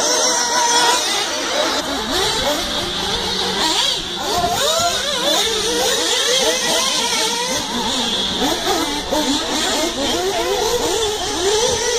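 Several 1/8-scale nitro RC buggy engines racing at once, their high-pitched whines rising and falling over and over as they accelerate and brake around the track.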